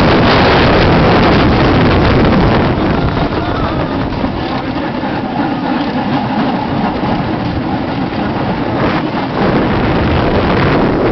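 Magnus Colossus wooden roller coaster train running along its track, with wind rushing over the microphone. It is loudest for the first couple of seconds, eases off in the middle, and builds again near the end.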